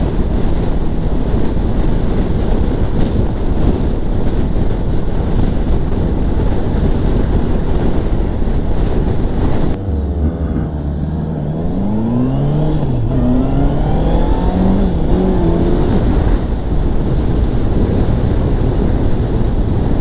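Wind noise on the microphone at road speed on a 2016 Honda CBR650F. About ten seconds in, the wind drops away as the bike slows, and its inline-four engine is heard pulling away, revs rising in steps as it shifts up. The wind noise then takes over again.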